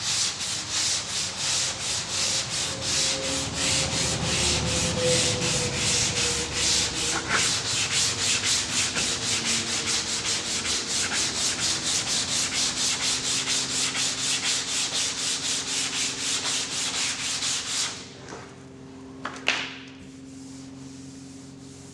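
Hand block-sanding of the car's quarter-panel bodywork: sandpaper rasping back and forth in a steady rhythm of about three strokes a second. The strokes stop about 18 seconds in, followed by a single sharp knock.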